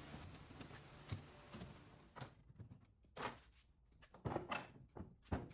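A handful of faint, separate knocks and clunks from wooden boards and clamps being handled on a workbench during a glue-up.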